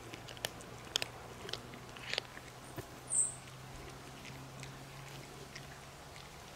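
Cats crunching dry kibble, with sharp, irregular crunches in the first couple of seconds and a brief high-pitched chirp about three seconds in.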